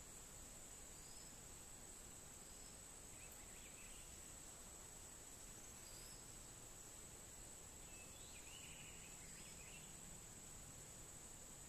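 Near silence: a faint, steady high-pitched insect drone, with a few faint bird chirps here and there.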